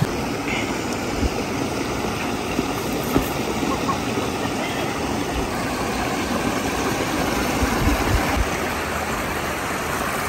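Small waterfall's water falling and splashing in a steady rush.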